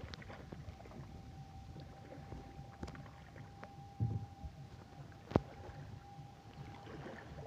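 A wet China duari, a collapsible mesh fish trap, being hauled out of a river over the side of a wooden boat: water splashing and dripping off the net, with a dull thump about four seconds in and a sharp knock, the loudest sound, about a second later. A faint steady high hum runs underneath.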